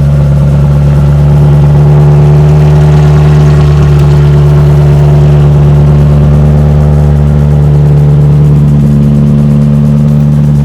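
McLaren 720S twin-turbo V8 with catless downpipes and a straight-pipe exhaust, running loud and steady at an even engine speed.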